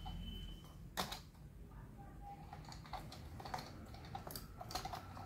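Faint scattered clicks and small snaps of a hand cutting tool and fingers working the room heater's wiring while a wire is cut, the sharpest click about a second in.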